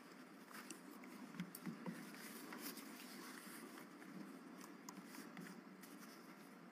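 Near silence: room tone with a few faint, scattered small clicks and taps.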